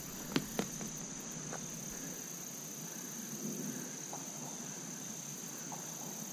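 Steady, high-pitched chirring of insects such as crickets, with two faint clicks about half a second in.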